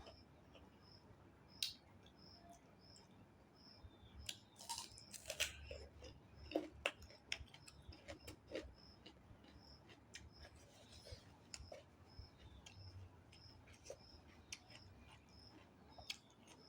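Close-miked eating sounds: short wet mouth clicks and chewing, with a few sharper ticks. A faint high chirp repeats steadily about every two-thirds of a second.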